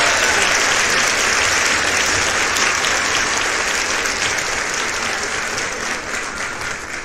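Audience applauding, a dense steady wash of clapping that slowly fades.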